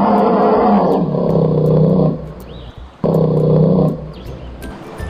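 A bear roaring twice: a long roar that ends about two seconds in, then a shorter one about three seconds in.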